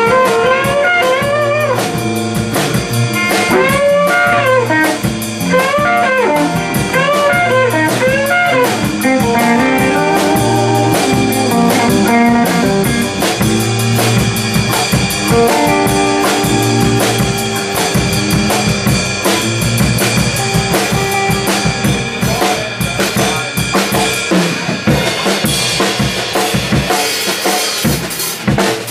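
Live electric band playing an instrumental: electric guitars, electric bass and a drum kit. A lead line of bent, arching notes runs through the first third, then the band plays on with steady drums, and the cymbals get brighter near the end.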